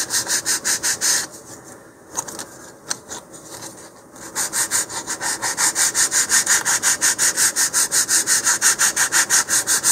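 150-grit sandpaper rubbed rapidly back and forth over a thin balsa wood fin to round its leading edge, in quick even strokes of about five or six a second, with a quieter, uneven stretch of about three seconds near the start.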